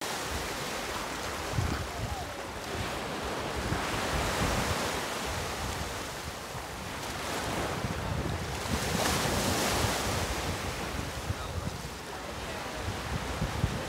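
Small ocean waves washing up on a sandy shore, a steady surf hiss that swells twice, with wind buffeting the microphone.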